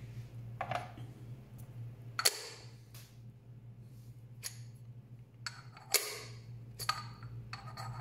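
Metal parts of a 1Zpresso K-Plus hand coffee grinder clinking and knocking as the catch cup and its extension ring are handled and fitted onto the grinder body: about half a dozen separate light knocks, the loudest about six seconds in, over a steady low hum.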